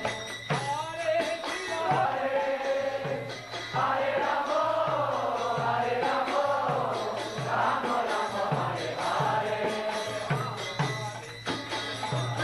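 A group of voices chanting a devotional kirtan together, over a two-headed drum beaten about twice a second and small hand cymbals clinking.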